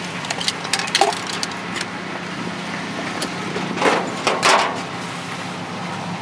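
Scrap metal items being handled and loaded into a pickup truck's bed: a few light clicks and clinks, then two louder clattering knocks about four seconds in as they are set down. A steady low hum runs underneath.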